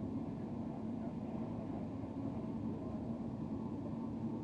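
High-speed train running at speed, heard from inside the carriage as a steady low rumble and rush with a faint steady hum.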